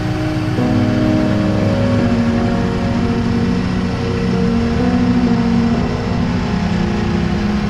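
Can-Am Spyder RSS's V-twin engine running steadily under way, its pitch shifting a few times, with wind and road noise.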